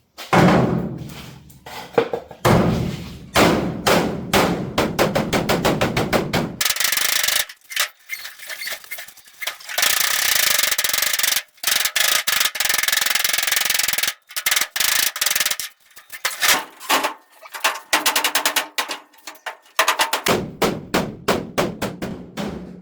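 Hammer blows pounding the corrugated steel of a Ford Ranger's pickup bed flat, in quick runs of about three to four strikes a second. A few stretches of several seconds of continuous harsh noise break up the hammering.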